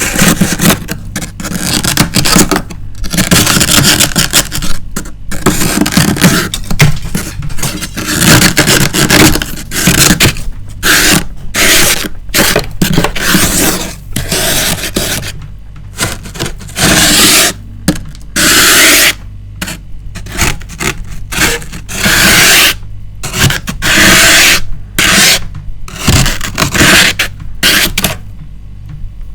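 Built-up frost being scraped off the inside walls of a freezer in repeated strokes, a crunchy rasp with short pauses between strokes, some of them longer than others.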